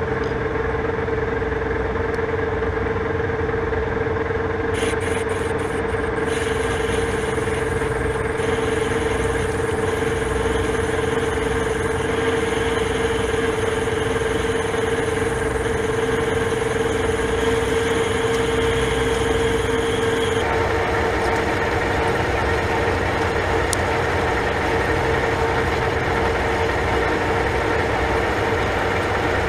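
Metal lathe running with a steady hum while its tool cuts a spinning metal part, peeling off curled chips. The cutting sound changes about five seconds in and again about two-thirds of the way through.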